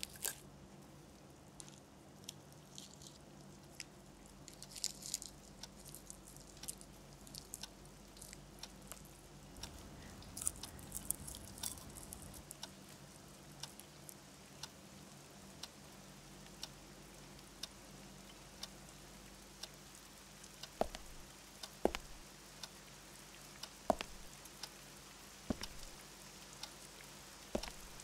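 Cellophane sweet wrappers crinkling as wrapped candies are picked from a tin, in short crackly bursts, then soft chewing. Later, sparse single drips fall every second or two.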